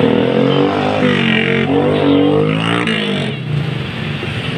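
A motor vehicle engine running close by, its pitch rising and falling as it revs, over busy street noise; it fades out a little over three seconds in.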